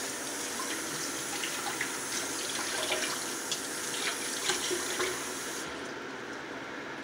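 Kitchen faucet running into a stainless steel sink as hands are washed with soap under the stream, with small splashes. The sound dulls suddenly near the end.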